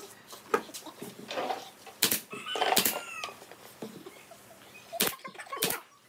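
Pneumatic brad nailer firing nails into a pine chair frame: several sharp shots, spaced irregularly, most of them in the second half.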